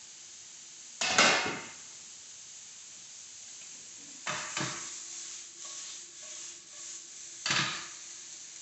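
Kitchenware clatter as metal tongs and a metal plate are handled beside a frying pan: three sharp knocks, about a second in, just past four seconds and near seven and a half seconds, the first the loudest. A faint steady sizzle from the pan of chicken and peppers runs underneath.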